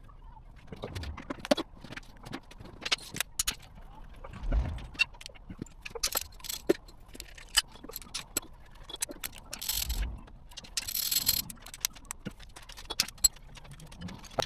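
Hand tools and metal engine parts clinking and knocking in scattered sharp clicks, with a brief scraping stretch about ten seconds in.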